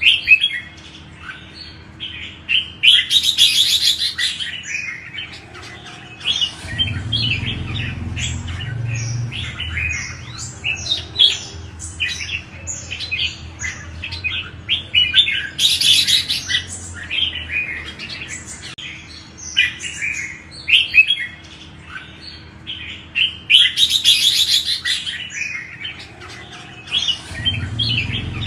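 Red-whiskered bulbuls singing: a steady run of short, quick whistled phrases, broken about three times by a louder, denser burst of song.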